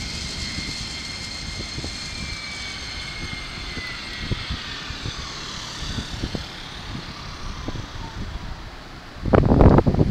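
Keikyu electric train's motor whine, slowly falling in pitch over a low running rumble. Wind buffets the microphone loudly about nine seconds in.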